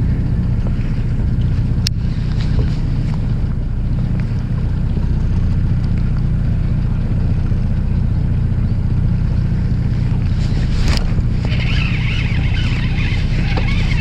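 Fishing boat's engine idling, a steady low rumble, with a sharp click about two seconds in and a scratchy rustle near the end.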